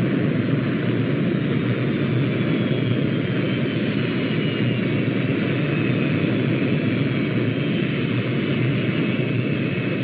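Eagle spacecraft landing-engine sound effect: a steady rushing engine noise with a faint high whine that slowly falls in pitch as the craft descends and settles onto the ground.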